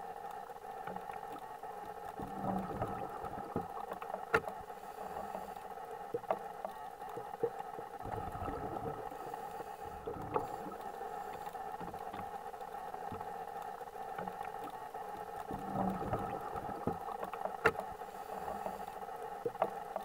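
Underwater ambience: a steady hiss with scattered sharp clicks and crackles, and low rushing swells that come and go every few seconds.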